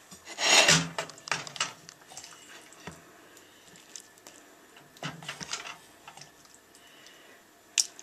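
A serving spoon scraping against a steel saucepan and clinking as bolognese sauce is spooned out onto a plate of spaghetti. It comes in two short scraping bouts, about a second in and about five seconds in, with light clinks between and one sharp clink near the end.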